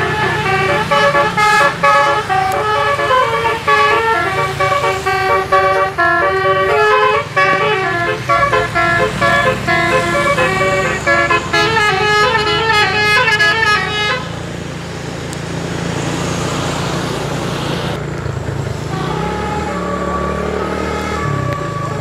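Bus 'telolet' multi-tone air horn from the roof-mounted trumpets playing a quick tune of many short stepped notes for about fourteen seconds, over a bus engine running. The tune then stops and the engine and road noise carry on, with a few fainter horn notes near the end.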